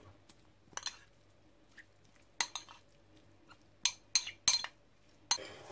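A fork clinking and scraping against a ceramic bowl as chopped spring onions are stirred in oil. There are irregular sharp clinks, with a quick cluster of three about four seconds in.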